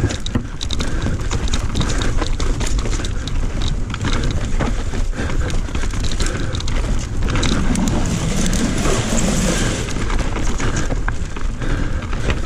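Mountain bike descending a rough dirt singletrack: tyres on loose dirt and roots, with continual rattling and knocking of the bike over the bumps and a low rumble of wind on the camera microphone.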